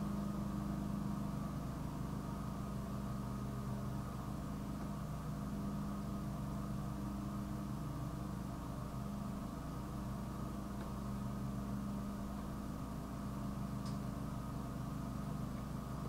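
A steady mechanical hum with several constant pitches, unchanging throughout.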